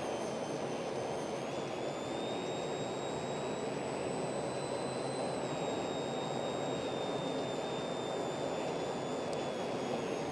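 Steady road and engine noise of a car driving at speed, heard from inside the cabin through a dashcam, with a thin high whine that rises slowly and then eases back down.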